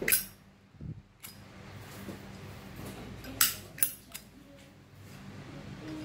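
Brass Zippo lighter handled in the hand: a sharp metallic click at the start, then a pair of loud metallic clinks about three and a half seconds in as its hinged lid is flipped open.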